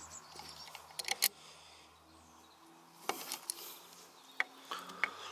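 A few short clicks and taps of hand tools working on the tractor's dynamo terminals as its wires are undone: a cluster about a second in, one around three seconds and a few more near the end, over a faint low hum.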